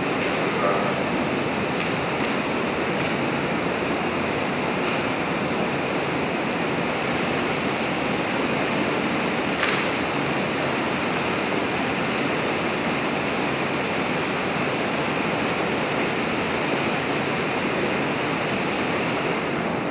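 Steady, even rushing noise of a full-scale office workstation fire, fed by a heptane spray burner that is still running.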